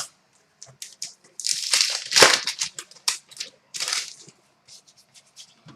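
Trading-card pack wrapper being crinkled and torn open, in irregular rustling bursts that are loudest about two seconds in.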